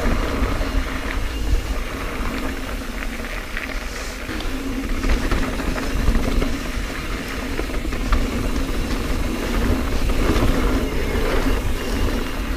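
Mountain bike ridden fast down a dirt singletrack: steady wind rumble on the microphone, with tyre noise on the dirt and scattered clicks and rattles from the bike over bumps.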